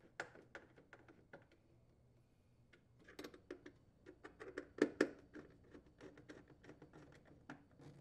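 Faint, irregular clicking and scraping of a nut driver tightening a refrigerator ice maker's mounting screws, with a couple of louder clicks about five seconds in.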